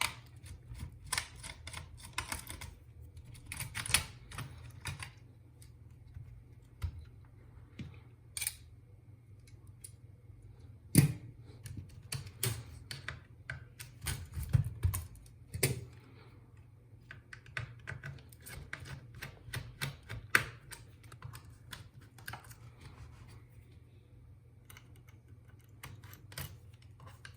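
Irregular small clicks, taps and scrapes of hand tools and plastic and metal parts as an HP EliteBook 8470p laptop is taken apart around its cooling fan, over a low steady hum.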